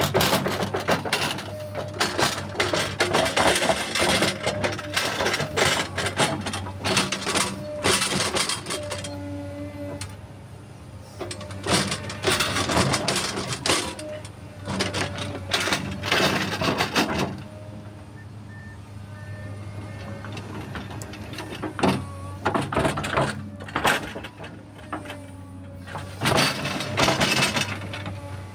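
Komatsu PC210LC-8 crawler excavator's diesel engine running steadily, with repeated bursts of clattering and knocking from the working machine. The bursts are loud for most of the first half, ease off in the middle, and return near the end.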